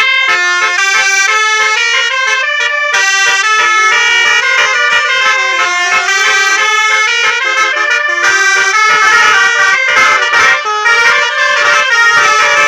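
Basuri 'telolet' musical bus air horn playing a loud, fast tune of stepped notes.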